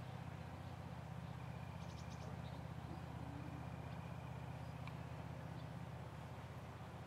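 Faint, steady low hum of outdoor background noise, with a few brief high chirps and ticks and a thin whistle held about a second, near two seconds in.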